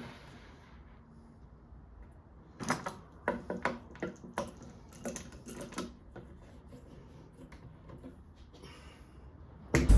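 A quick run of light clicks and knocks, about a dozen over three seconds, starting about two and a half seconds in. Music with drums comes in loudly just at the end.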